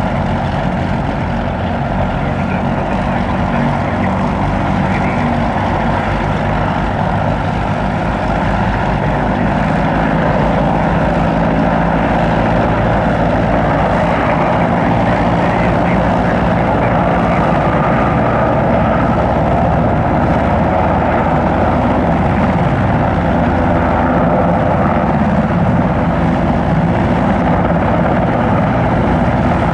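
Sikorsky S-92A helicopter running on the ground: its twin turboshaft engines and turning main and tail rotors make a steady, loud mechanical noise that grows a little louder about ten seconds in.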